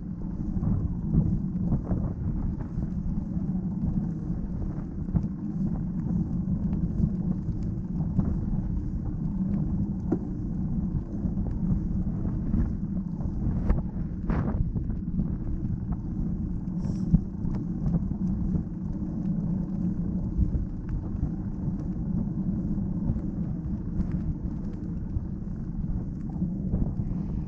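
Steady wind and rolling rumble picked up by a GoPro action camera's microphone while a bicycle rides along a paved path. There are a couple of brief knocks about halfway through.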